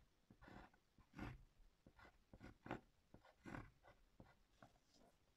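Pencil lead scratching across notebook paper on a wooden surface, writing capital letters in about a dozen short, faint strokes with brief pauses between them.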